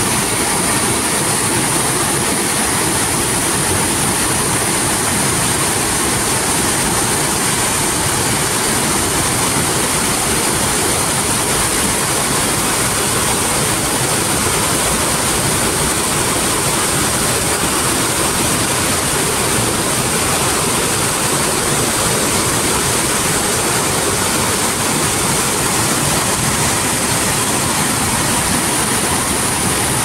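Fast-moving muddy floodwater rushing in a steady, unbroken torrent.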